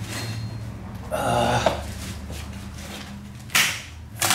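Rotten wooden framing being worked loose by hand at the base of a brick wall: a short, buzzy creak about a second in, then sharp scraping knocks near the end, over a steady low hum.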